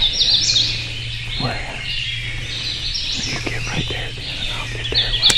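Songbirds singing in woodland: bright, high chirping phrases near the start and again near the end, over a steady low hum.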